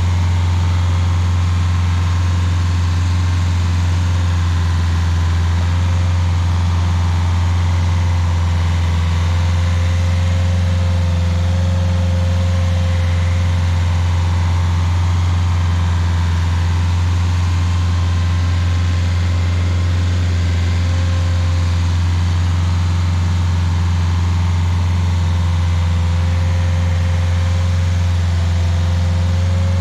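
Rayco RG50 stump grinder's engine running steadily at a constant pitch, a loud low hum with no grinding impacts.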